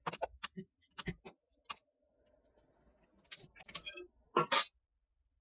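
Scattered light clicks and taps, a handful in the first two seconds and a louder pair about four and a half seconds in.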